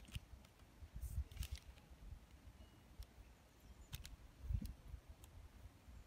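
Quiet background with a faint, uneven low rumble and a few faint scattered clicks.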